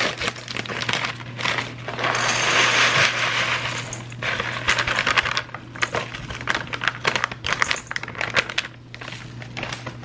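Dry boxed stuffing mix (dried bread cubes) poured from its packaging into a stainless steel saucepan: a dense pattering and rattling of crumbs on the metal, with the packaging crinkling. It is loudest about two seconds in and tapers off near the end.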